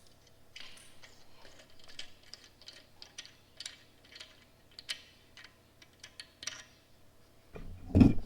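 Faint, irregular light ticks and clicks, then a loud low thump near the end.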